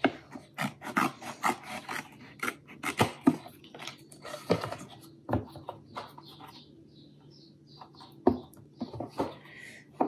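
Scissors cutting through a paperboard juice carton: a quick run of sharp snips and crunches, then quieter handling of the carton with a few more snips near the end.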